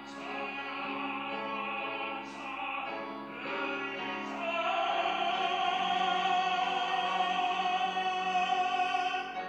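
Baritone solo singing in an operatic, classical style, moving through several notes and then holding one long, loud final note from about halfway through until just before the end.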